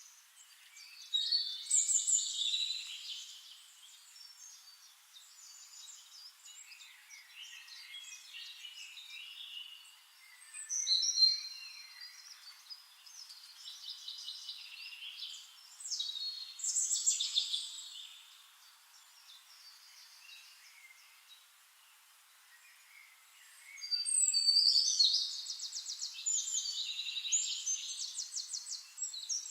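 Birds singing and chirping in bursts of short whistled phrases and quick trills, with the longest, loudest run of trills starting about three-quarters of the way in.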